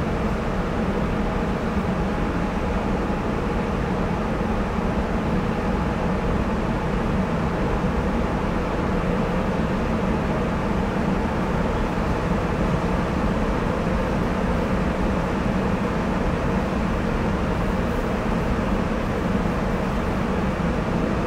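Sapporo Municipal Subway Tōhō Line 9000-series rubber-tyred train running at a steady speed through the tunnel, heard from inside the car as an even rumble of tyres and running gear.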